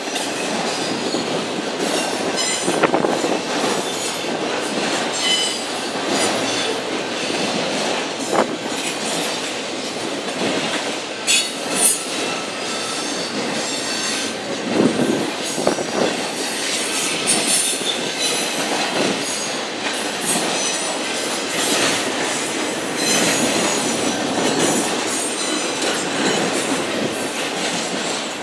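BNSF intermodal freight train, flatcars loaded with semi-trailers, rolling past with a steady rumble of wheels on rail. Sharp clanks and knocks come now and then, with brief high-pitched wheel squeals around the middle.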